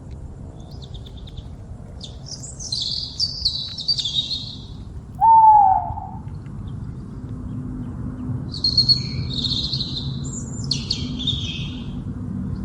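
Wild birds calling: two bursts of high, jumbled chirping notes, with a single loud whistled note about five seconds in that falls slightly in pitch, over a steady low background rumble.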